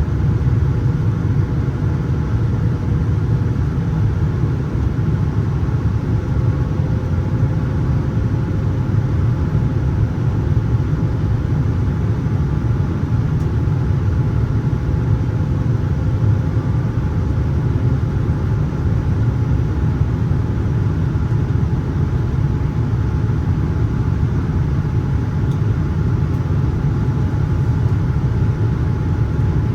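Steady cabin noise inside a Boeing 787-9 in flight: a low rumble of airflow and jet engines, with a faint engine hum that drifts slightly in pitch.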